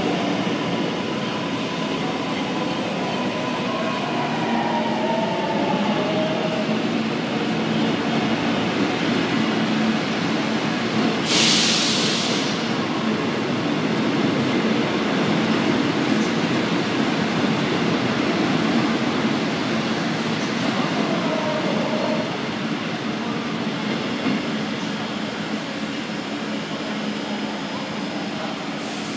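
Electric commuter subway train running along the platform: a steady rumble of wheels on rail, with a gliding whine in the first few seconds and again around twenty seconds in. A short hiss comes about eleven seconds in.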